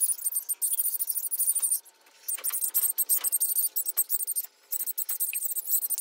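Wire cage doors and food dishes clinking and rattling in repeated short knocks as food is set into bird cages. Throughout, there is a constant high-pitched chatter of caged small parrots: conures and budgerigars.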